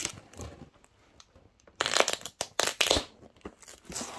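Cardboard mailing box being pulled open by hand: rough tearing and scraping of cardboard and tape, loudest twice, about two and three seconds in, with small clicks.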